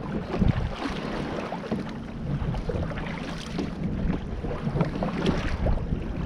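Canoe paddle strokes dipping and splashing in choppy water, with wind buffeting the microphone. A low steady hum runs underneath.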